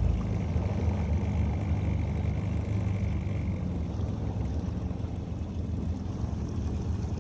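A motor running steadily with a low drone, and a faint thin high whine over it for the first three and a half seconds.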